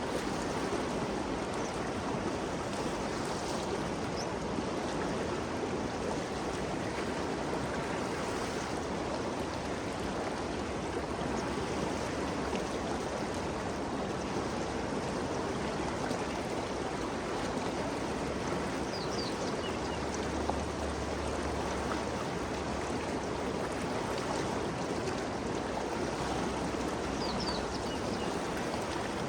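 Ganges River flowing steadily, an even rush of moving water, with a few faint high chirps toward the end.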